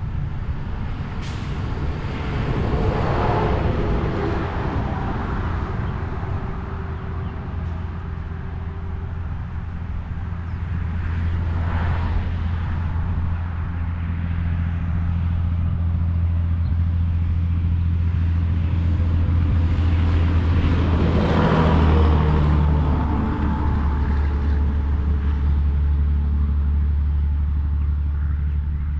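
Road traffic: a steady low engine drone, with vehicles passing by three times, the last and loudest about three-quarters of the way through.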